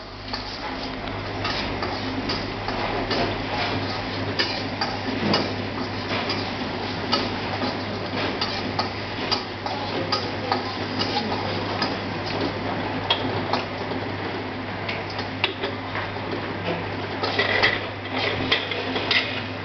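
Sliced shallots frying in oil in a wok, with a spatula scraping and tapping against the wok as they are stirred, over a steady low hum.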